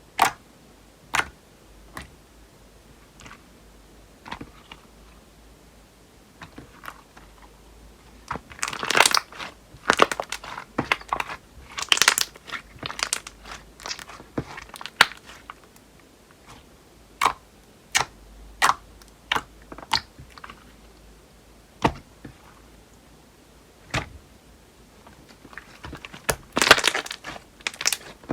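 Slime being handled by hand: a string of sharp pops and clicks, with clusters of quick crackling as it is squeezed and stretched.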